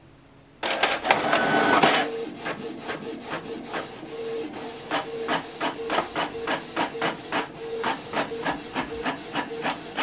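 Canon PIXMA MG2551S inkjet printer printing a test page. About half a second in, a loud whir starts as the paper is pulled in. Then the print-head carriage runs back and forth with a steady tone and regular ticking, about three times a second, while the printed sheet feeds out.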